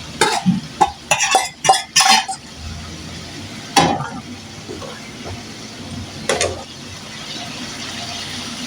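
A metal utensil stirring and scraping in a cooking pan, with a quick run of clicks and knocks in the first couple of seconds and two more single knocks later. A steady low sizzle of food frying runs underneath.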